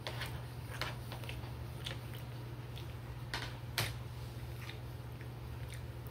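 Eating sounds: a fork clicking and scraping on a plate and chewing, a handful of short clicks, with a louder knock a little past halfway. A steady low hum runs underneath.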